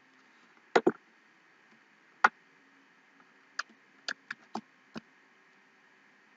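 Computer mouse clicking: a quick double click about a second in, then scattered single clicks, most of them bunched about four to five seconds in.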